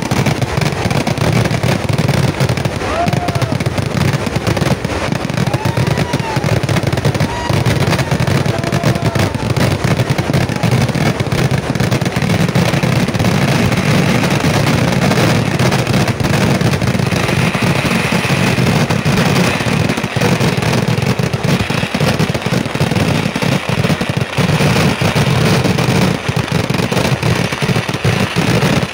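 Kerala temple-festival fireworks (vedikettu) in full barrage: a dense, unbroken volley of cracker bursts firing rapidly and continuously.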